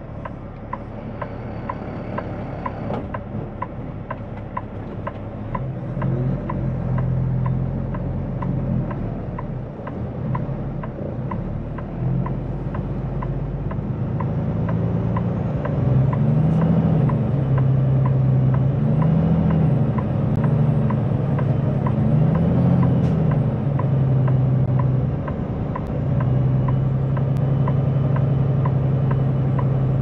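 Kenworth T880 semi tractor's diesel engine revving up and down repeatedly, getting louder partway through, as the truck strains to move the lowboy trailer through soaked mud. A light regular ticking runs underneath.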